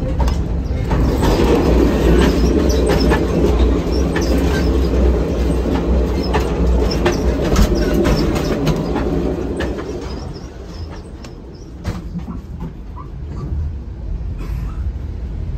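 Caltrain commuter train running, heard from inside the passenger car: a steady low rumble of wheels on rail with scattered clicks and rattles. It is loudest for the first ten seconds or so, then eases.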